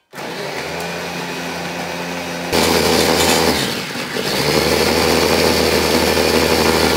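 Small electric food chopper running, its blades chopping raw potato chunks. The motor starts at once, gets louder about two and a half seconds in, dips briefly near the middle, then runs on steadily.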